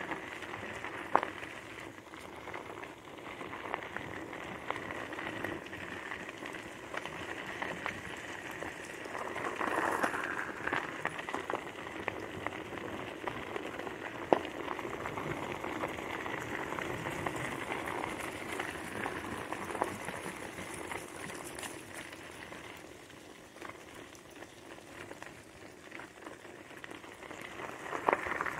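Tyres rolling over a gravel trail, a steady crackling hiss that dips for a few seconds near the end, with two sharp clicks.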